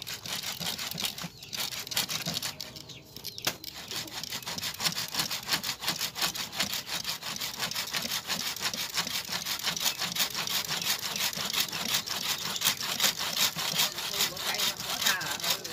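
Wooden frame saw with a narrow blade cutting back and forth through a fresh Melastoma (hoa mua) stem in steady, even strokes, with a short pause about three seconds in.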